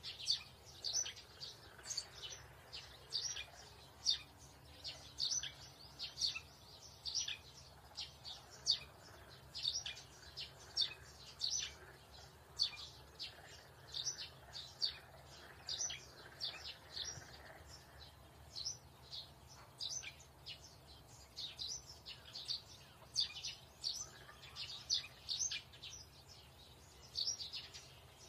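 Birds chirping: many short, high chirps at an irregular pace of roughly two a second, over a faint low hum.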